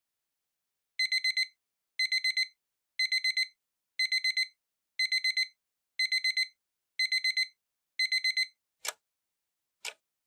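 Digital alarm beeping in quick bursts of four, one burst a second, eight times, then giving way to single sharp ticks about once a second; the timer signal that ends a 25 + 5 minute Pomodoro cycle.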